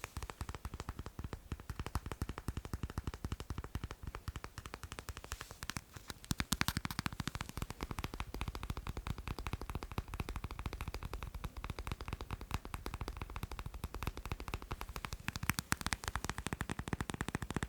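Fast tapping on macarons: a continuous run of rapid light taps, many a second, with no let-up.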